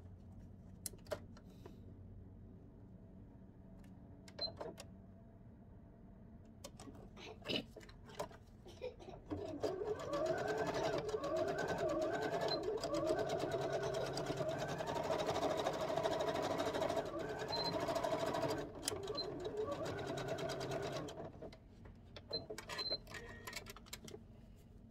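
Electric sewing machine running for about eleven seconds, stitching an elastic band onto a wig cap, with a rapid needle chatter whose pitch wavers as the speed changes. A few separate clicks and knocks of handling come before and after the run.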